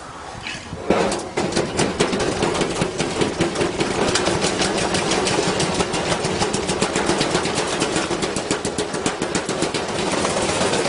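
Washing machine drum spinning with a heavy loose object inside, battering the drum in a fast, steady clatter of knocks. It starts suddenly about a second in.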